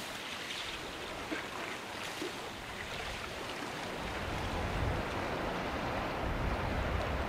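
Light chop on Lake Superior washing against the shore, a steady wash of small waves; a low rumble joins in from about four seconds in and grows.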